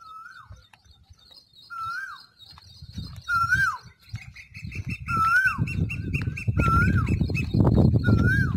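Birdsong: one bird repeats a short whistled note that rises and then drops, about every second and a half, while a second bird adds a fast run of higher chirps in the middle. A low rumbling noise builds from about three seconds in and is loudest near the end.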